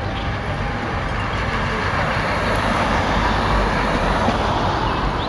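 A car driving past close by, its tyre and engine noise swelling to a peak about four seconds in, then easing off.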